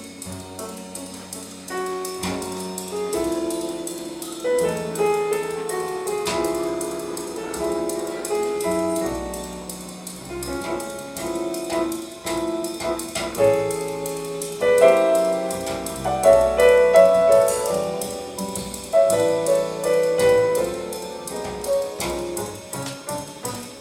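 Piano music played back over a high-end hi-fi system's loudspeakers in a listening room.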